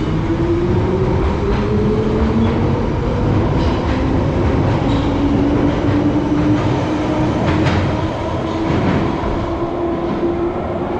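London Underground 1973 Stock tube train pulling out of the platform and gathering speed, its traction motors whining and slowly rising in pitch over the rumble of the wheels. Sharp wheel clicks come at irregular intervals, several of them between about three and nine seconds in.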